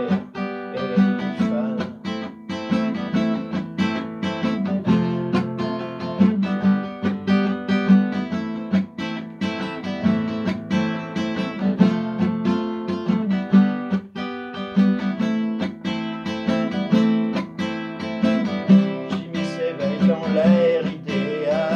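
Classical acoustic guitar strummed in a steady rhythm, chords ringing between the strokes: an instrumental passage of a song, without singing.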